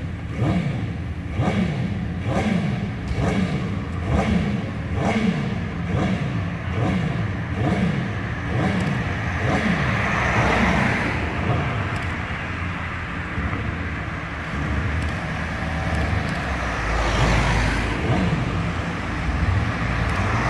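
Car engines in a race-circuit pit lane, revved up and down over and over. Cars then drive past, one about halfway through and another near the end.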